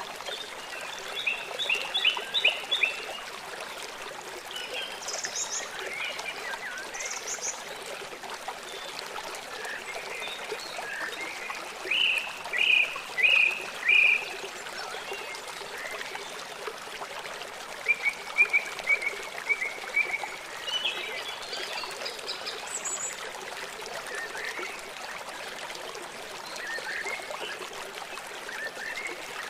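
Steady rush of flowing water, like a stream, with short groups of high chirping calls over it, the loudest a run of four notes around the middle.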